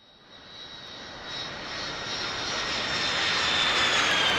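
Jet aircraft engines growing steadily louder as the plane approaches, with a high whine that slowly falls in pitch.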